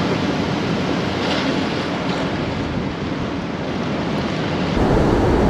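Ocean surf washing and breaking against coastal rocks, a steady rushing noise, with wind buffeting the microphone. Near the end the low rumble gets heavier.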